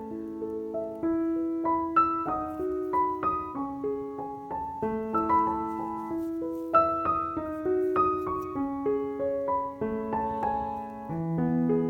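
Background piano music: a gentle melody of separate notes over soft chords.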